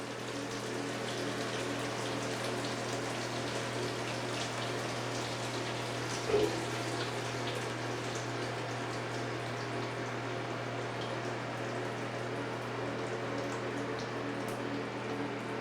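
Water running steadily down a waterfall urinal in a small tiled washroom, with a steady low hum underneath and a brief louder sound about six seconds in.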